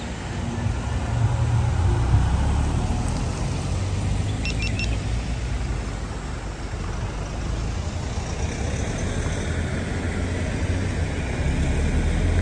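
Motorcycle on the move: steady engine rumble mixed with road and wind noise.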